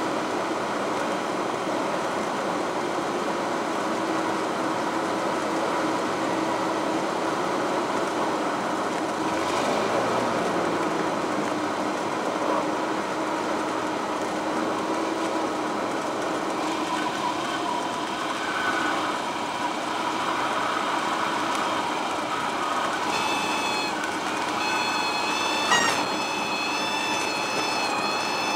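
Single-engine light aircraft's piston engine and propeller heard from inside the cabin, running steadily at low power through final approach, touchdown and rollout. Near the end a steady high whistling tone comes in, and there is one short knock a few seconds before the end.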